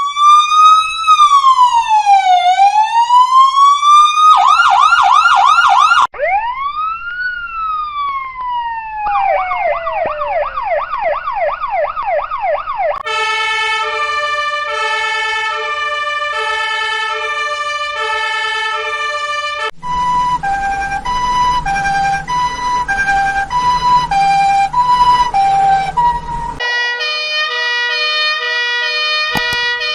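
Police, fire truck and ambulance sirens played one after another. First a slow rising-and-falling wail, then a fast yelp, more wails and fast falling sweeps. Then alternating two-tone hi-lo patterns, the last with a low rumble under it, and near the end a steady multi-tone blare.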